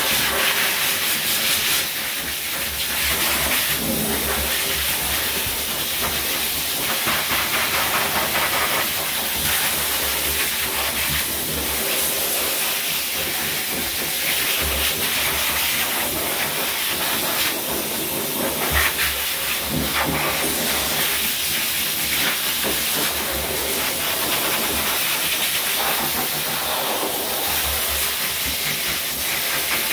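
Pet grooming blow dryer blowing air through its hose nozzle onto a wet dog's coat: a steady, noisy rushing hiss.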